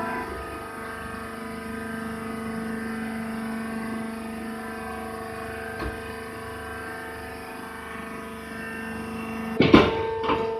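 Hydraulic wood chip baler running with a steady humming whine from its pump motor. There is a faint click about six seconds in, and near the end a loud metallic clank followed by a second, smaller knock.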